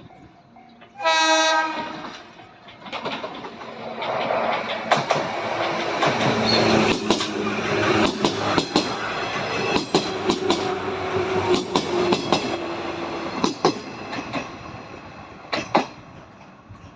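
JR West 105 series electric train sounding a short horn blast about a second in, then passing by with the rhythmic clack of its wheels over the rail joints, which fades away near the end.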